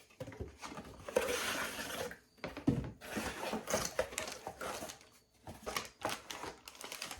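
Figure packaging being opened and handled: rustling and crinkling, with scattered clicks and knocks.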